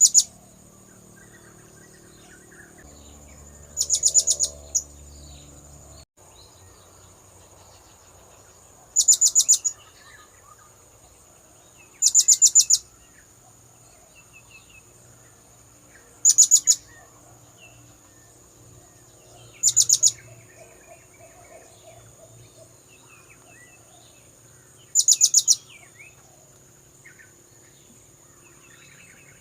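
Blue-crowned hanging parrot (serindit) calls used as a lure: short bursts of rapid, very high, sharp notes, six bursts spaced three to five seconds apart. A steady high whine runs underneath.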